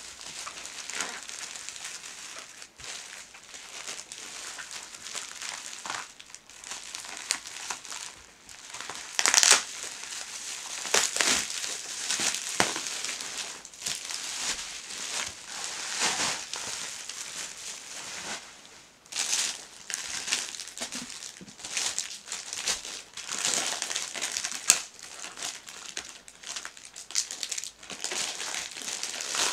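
Bubble wrap and clear plastic packaging crinkling and crackling in irregular handfuls as it is pulled off and crushed from a boxed set of books.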